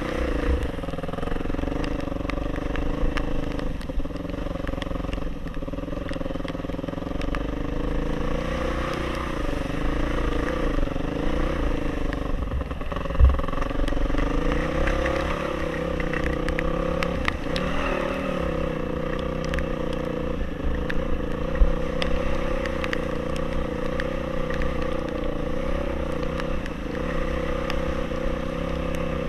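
Off-road motorcycle engine running steadily while riding a trail, its pitch rising and falling gently with the throttle over a low rumble. Two sharp knocks stand out, one about halfway through and one some seconds later.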